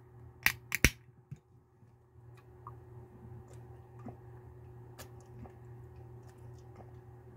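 A 12 fl oz aluminium drink can cracked open by its pull tab: a few sharp clicks within the first second. This is followed by faint, scattered clicks and swallows as the tea is drunk, over a steady low hum.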